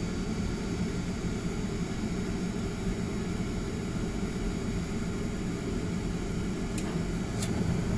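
A 25-year-old furnace running with a steady low rumbling whoosh from its burner and blower. Two faint clicks come near the end.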